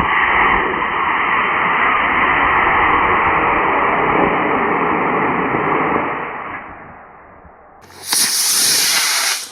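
Mid-power model rocket motor firing at liftoff: a loud rushing roar that sets in at once, holds steady for about six seconds and then fades away. Near the end comes a second short, loud hiss that cuts off suddenly.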